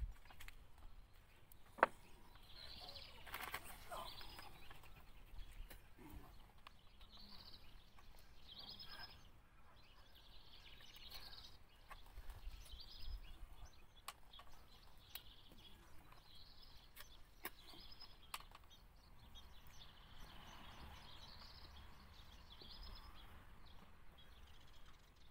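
Faint outdoor ambience of small birds chirping every second or so, with a few sharp clicks and taps, one louder click about two seconds in.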